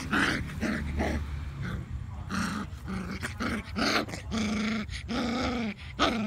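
Puppies play-fighting, giving a string of short pitched growls and whines, about ten in all, the longer ones in the second half.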